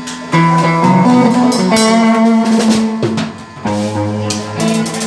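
Live band playing: drum kit hits over sustained chords that change every second or so, with a brief drop in loudness a little past the middle.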